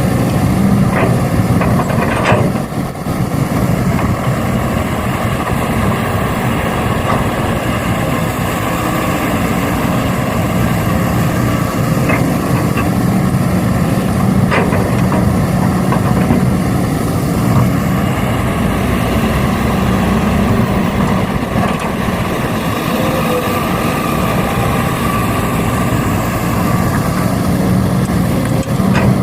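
A vehicle engine running steadily with a low, even hum, and a few brief clicks over it.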